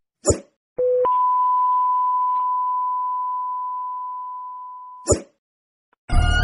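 Electronic beep sound effect: a brief lower tone, then one long steady high beep of about four seconds that slowly fades, with a short click before it and another after it.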